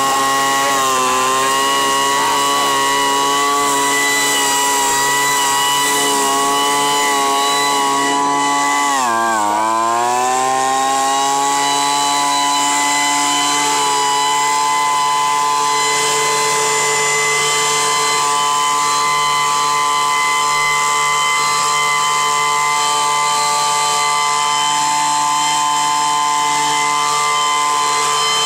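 Two-stroke handheld vacuum leaf blower running at high speed with a steady engine whine. About nine seconds in the revs dip sharply, then climb back within a couple of seconds.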